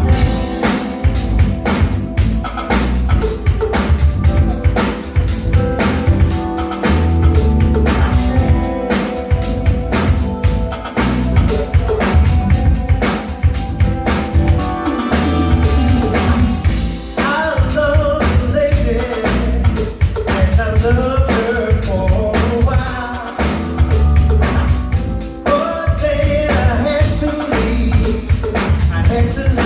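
Live funk band playing through a number at a soundcheck, driven by a drum kit groove. A wavering lead melody comes in a little over halfway through.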